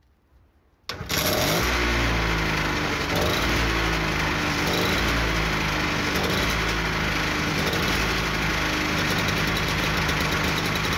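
Small single-cylinder engine of a Fimag portable generator, running after coming in about a second in, its pitch drifting up and down as the governor settles.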